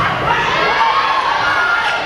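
Gym crowd cheering and shouting, many voices at once, as a volleyball rally ends.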